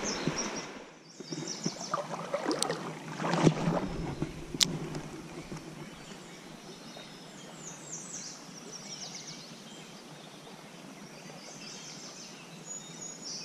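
Spinning rod and reel being cast and retrieved: a few sharp clicks in the first five seconds, then a steady low outdoor hiss with faint high chirps.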